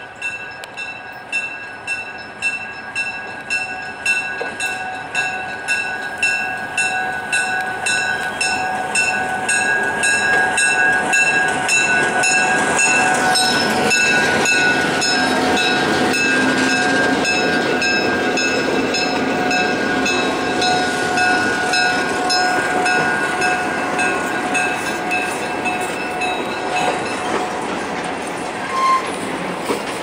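Freight train led by two EMD GP38-2 diesel locomotives approaching and passing close by; the engines and wheels are loudest from about a third of the way in to about two thirds. A bell rings steadily about twice a second throughout and stops near the end.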